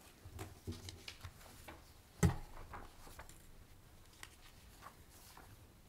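Faint handling noises as papers in a meeting packet are leafed through: scattered small clicks and taps, with one sharp, louder thump about two seconds in.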